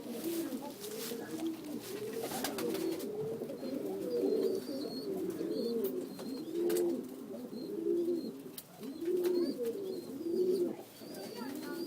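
Many domestic pigeons cooing at once, their low calls overlapping throughout, with a few sharp clicks and knocks in the first three seconds.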